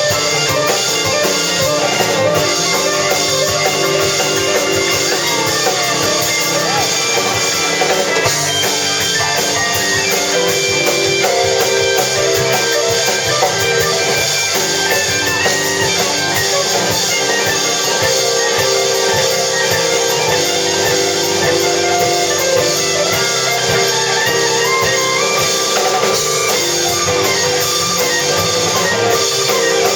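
Band music with guitars and a drum kit playing steadily.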